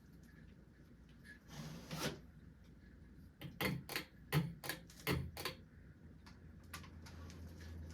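Several sharp mechanical clicks in quick succession, then the low steady hum of a Harbor Breeze ceiling fan motor starting about five seconds in, as if its pull-chain switch had been worked.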